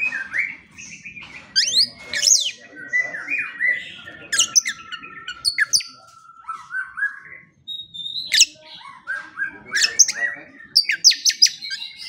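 White-rumped shama singing: a varied run of clear whistles, a few held notes and quick sweeping phrases, with a short break a little past halfway.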